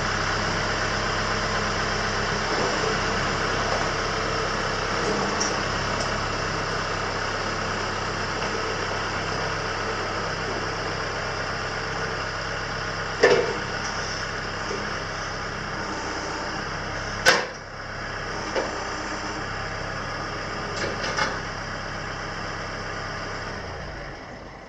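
An engine idling steadily, with two sharp knocks about halfway through, then shutting off just before the end.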